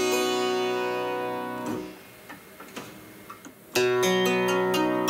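Harpsichord playing a chord that rings and fades out, first with its ordinary plucked sound, then after a short pause with a few faint clicks, the same notes played again about four seconds in with the lute stop engaged.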